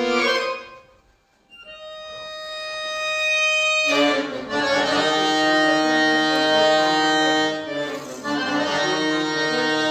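Solo accordion (bayan) playing a slow piece. A held chord dies away into a brief pause, then a single high note swells in. About four seconds in, full sustained chords with a bass line take over and carry on, with a short break near eight seconds.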